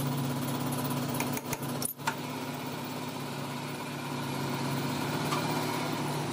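Metal lathe running with a steady hum, with a brief dropout and a few clicks about two seconds in.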